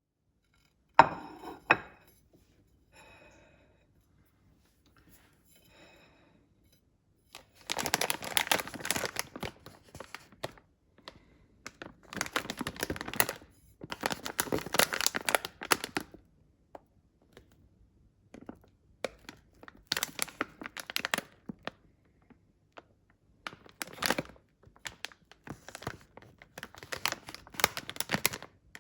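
Food packaging being torn open and crinkled by hand in several bursts of rustling, with a sharp knock about a second in.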